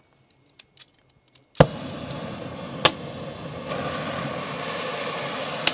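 A few small clicks, then a sharp pop as an oxyacetylene cutting torch lights, followed by the steady hiss of its flame, which grows a little louder about two seconds later. Two more sharp pops come from the torch, one just after lighting and one near the end.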